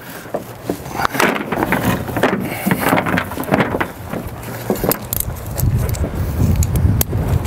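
A bungee cargo net with metal carabiners is dragged and handled over a loaded pickup bed, giving rustling with scattered clicks and clinks. A low rumble joins it in the second half.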